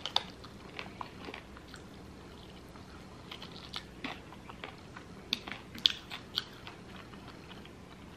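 Close-up chewing and biting of crisp lemon pepper chicken wings: soft chewing with scattered short crunches and clicks, a cluster of louder crunches a little past the middle.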